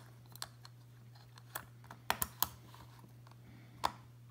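A handful of irregular sharp clicks and taps as a Civivi Elementum pocketknife and its titanium handle scales are handled and fitted together on a wooden tabletop. There is a small cluster of clicks about two seconds in and another single click near the end.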